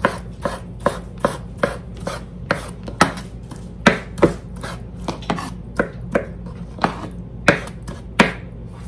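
Chef's knife chopping roasted poblano peppers on a wooden cutting board: a steady run of sharp knocks, about three a second.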